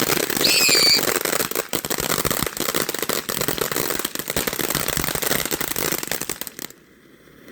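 Consumer ground firework crackling: a dense, rapid string of small pops, with a brief high whistle about half a second in, stopping suddenly near the end.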